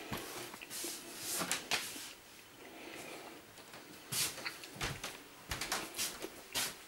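Scattered knocks, clunks and rustling of storage boxes being handled and shifted into place.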